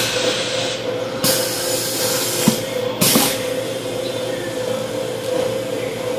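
Automatic screen printing press running: a steady hum with short hisses of air from its pneumatic valves, the longest about a second in, another about three seconds in, and a light knock between them.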